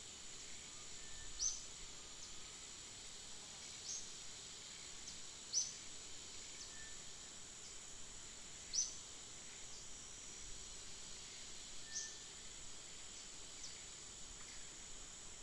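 Outdoor ambience: a steady high drone of insects, with about five short high chirps a few seconds apart.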